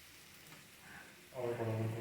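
Faint sizzle of marinated chicken frying in a pan, with a short, steady-pitched vocal hum about a second and a half in.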